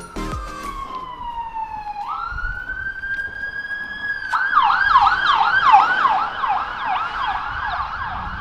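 Electronic emergency-vehicle siren: a slow wail that falls, rises again and holds, then about four seconds in switches to a fast yelp sweeping up and down about three times a second.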